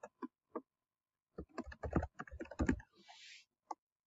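Computer keyboard being typed on: a few single keystrokes, then a quick run of keystrokes about a second and a half in as a word is typed.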